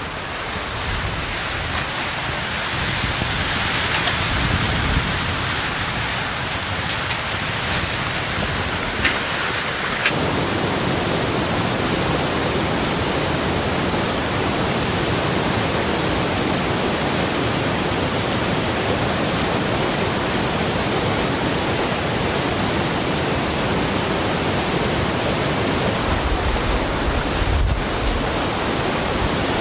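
Heavy rain falling steadily during a thunderstorm, with low thunder rumbling and a few sharp cracks. About ten seconds in, the sound switches to a denser, even downpour of monsoon rain, and low rumbling comes back near the end.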